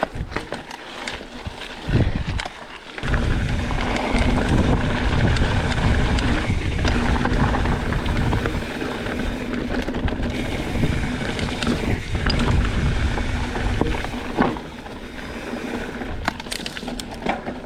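Mountain bike riding down a trail: tyres rolling over dirt and wind rushing over the camera microphone, picking up strongly about three seconds in, with a few knocks from the bike over bumps.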